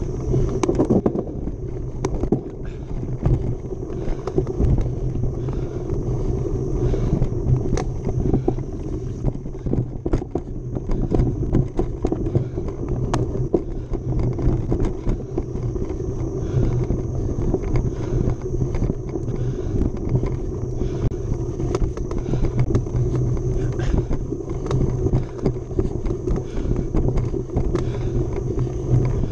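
Mountain bike ridden along a dirt race trail: a steady rumble of tyres and riding noise with frequent clicks and rattles from the bike over rough ground.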